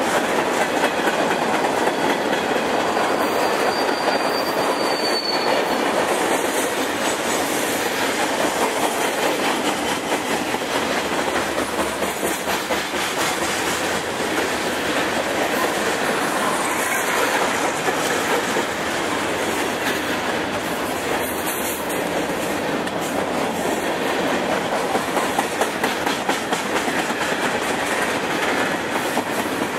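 Freight train cars rolling past close by, a steady loud clatter of steel wheels clacking over the rail joints. A brief high wheel squeal comes about four seconds in.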